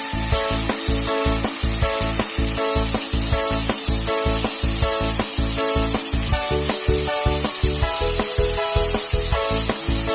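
Background music with a steady quick beat, over a steady high hiss of food sizzling in a pan that grows a little louder after about two seconds.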